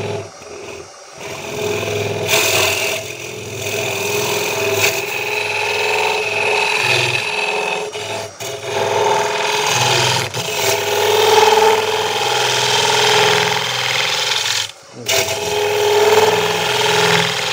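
Wood lathe turning while a ring-cutter hollowing tool cuts into end grain: a continuous scraping hiss of shavings over a steady hum. Near the end the cut stops for a moment, then resumes.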